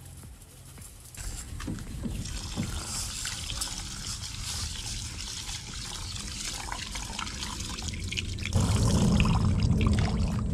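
Water running from the spigot of a plastic water jug into a small metal camping pot of rice, rinsing the rice. The flow gets much louder about eight and a half seconds in.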